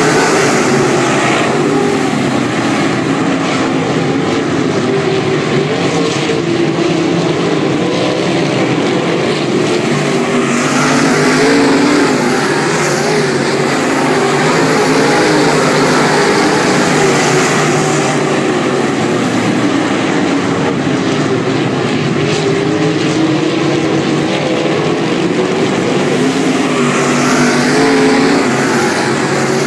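A field of dirt-track modified race cars running laps, their V8 engines loud and continuous. The sound swells with rising engine pitch as the pack comes past, about twelve seconds in and again near the end.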